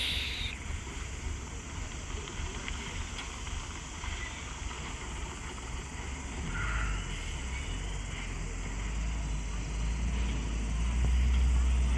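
Heavy truck engine rumbling low, growing louder about halfway through and again near the end.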